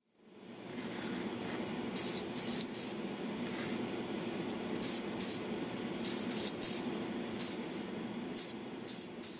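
Short hisses of spray paint, about a dozen passes in quick groups, as a gloss clear coat goes onto small plastic model parts over primer. Under them is a steady hum from the spray booth's fan.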